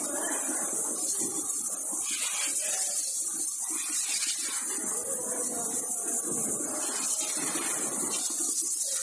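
A steady high hiss, with faint muffled voices underneath.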